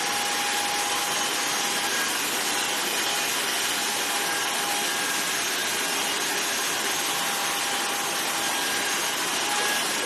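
Electric hair clippers running with a steady buzz while cutting through hair, with an even rasping noise.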